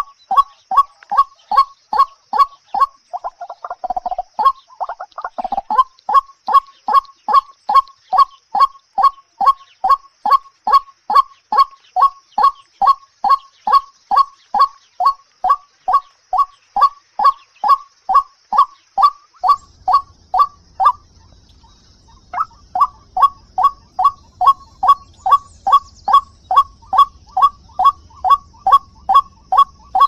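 White-breasted waterhen calling, one short downward-slurred note repeated in a steady rhythm of about two and a half a second, with a pause of about a second and a half about two-thirds of the way through. A brief rustle comes about four seconds in.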